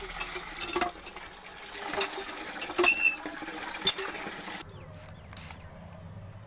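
Cast-iron hand pump being worked by its handle, with a clank at each stroke about once a second, while water gushes from the spout into a plastic bucket. The sound cuts off suddenly about four and a half seconds in, leaving a much quieter low background.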